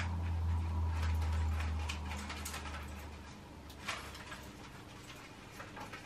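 Small, scattered clicks and scratches of a cockatiel's beak nibbling at its toes and nails, over a low hum that fades out about halfway through.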